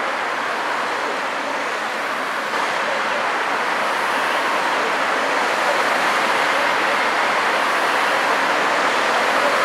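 Steady hiss of road traffic on a city street, cars passing in a continuous wash with no single vehicle standing out, growing slightly louder a couple of seconds in.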